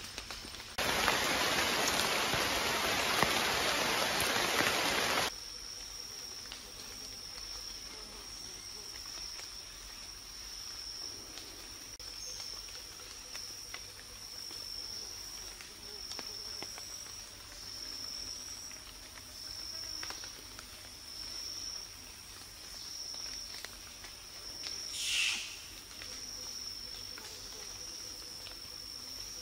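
Rainforest insects keep up a steady high-pitched pulsing drone. About a second in, a loud rushing noise starts, lasts about four seconds and cuts off abruptly. Near the end a single louder high call swells and fades over about a second.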